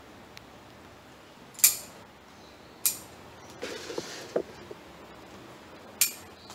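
Bonsai scissors snipping small casuarina shoots: three sharp snips, the second and third about a second and three seconds after the first, with a brief rustle of the needle-like foliage between them.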